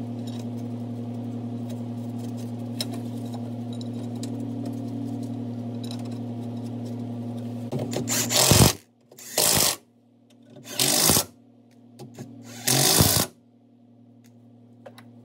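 A DeWalt XR cordless impact wrench is run in four short bursts, starting a little past halfway, driving the cross-member bolts home. Before the bursts there is a steady low hum, which carries on faintly under them.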